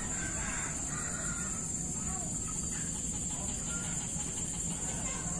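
Steady high-pitched insect chorus, with faint bird calls now and then.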